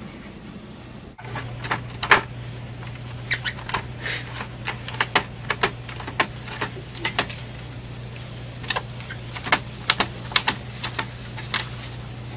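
Irregular sharp clicks and taps of hard plastic over a steady low hum, from a cat pawing at an HP inkjet printer's paper tray.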